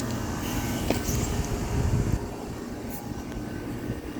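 Daikin outdoor air-conditioner condensing units running: a steady fan and compressor hum over a low rumble, with a light click about a second in.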